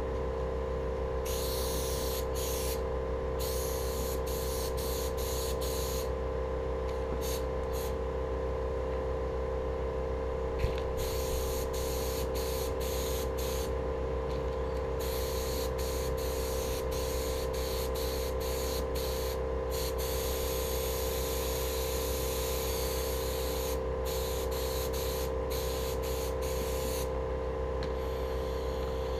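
Compressed-air paint spray gun spraying black paint onto steel wheels: an airy hiss that cuts out and comes back again and again as the trigger is released and pulled, over a steady hum. One sharp tap about eleven seconds in.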